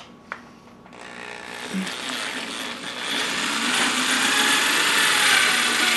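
Electric drill with a paddle mixer whirring as it stirs gelatin in a plastic bucket, while hot water is poured in and splashes. The sound starts about a second in and grows louder, after two small clicks at the start.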